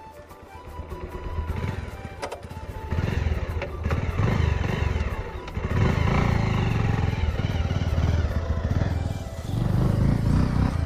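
Bajaj Pulsar 150's single-cylinder four-stroke engine revving as the motorcycle pulls away and accelerates, getting louder from about a second and a half in. The revs climb again near the end, and the sound cuts off suddenly.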